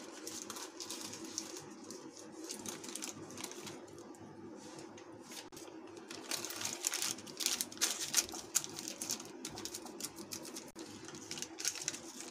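Paper crinkling and rustling as the paper-backed sheets of edible silver leaf are handled and their backing paper is peeled away, with louder, denser crackling around the middle and again near the end.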